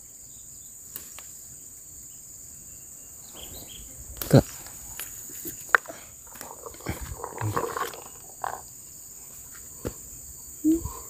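Steady high-pitched buzz of an insect chorus, with a few sharp knocks and some rustling handling sounds over it, the loudest knock about four seconds in.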